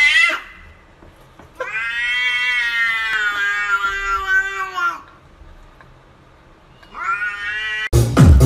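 Domestic cat making long, drawn-out meows. A rising meow ends just after the start, a held meow of about three seconds follows, and a short rising meow comes near the end. Loud electronic dance music with a beat cuts in abruptly at the very end.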